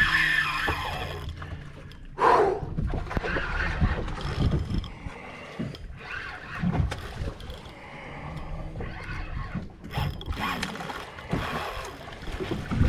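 Rod-and-reel fight with a heavy spinning reel under load: the reel is worked and the rod handled against a hooked amberjack, with wind noise on the microphone. Irregular knocks throughout, and one short loud sound about two seconds in.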